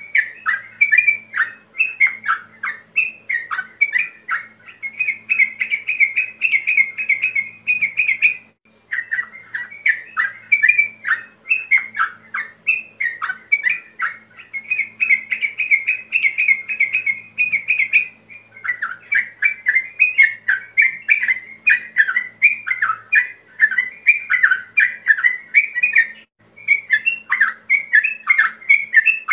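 Male yellow-vented bulbul (trucukan) singing a rapid, continuous stream of bubbly chattering notes, the call of a male challenging rivals. The song breaks off briefly twice, about eight and eighteen seconds in.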